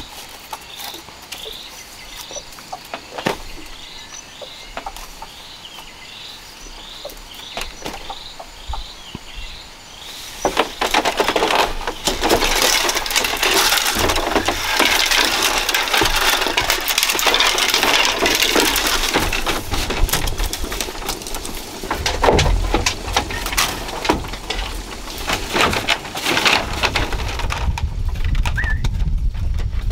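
Faint short chirps repeating about twice a second, with a few clicks. About ten seconds in, a loud, dense rustling and crackling of dry bamboo strips being handled close by takes over and carries on.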